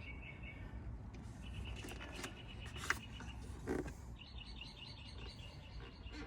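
Faint background chirping: runs of rapid, evenly pulsed trills at a few steady pitches, with a couple of light clicks about three and four seconds in.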